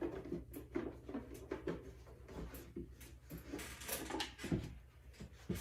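Camera accessories and their packaging being handled: an irregular run of small knocks, clicks and rustles over a faint, steady low hum.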